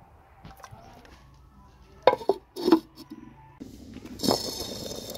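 A clay lid set onto an earthenware cooking pot: two sharp clinks of clay on clay about two seconds in, then a steady hiss with one more knock near the end.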